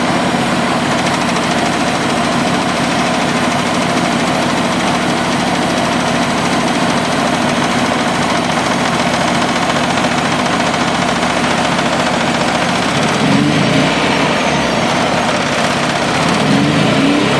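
Nissan RB20DET turbocharged straight-six idling steadily but unevenly, still misfiring on cylinders 4 and 5 despite swapped coil packs and harness. The pitch wavers briefly twice near the end.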